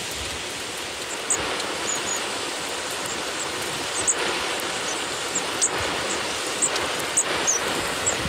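Thin, high calls of long-tailed tits, about a dozen short chirps scattered through, over a steady rushing hiss.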